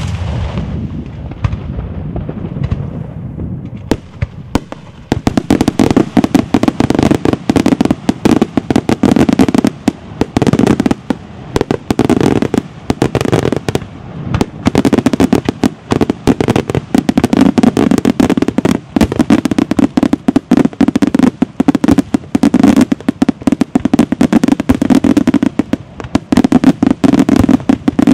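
Daytime aerial fireworks by Gioiese Fireworks bursting overhead. The rumble of an earlier blast fades over the first few seconds, then from about five seconds in comes a dense, rapid, unbroken string of loud bangs and crackles.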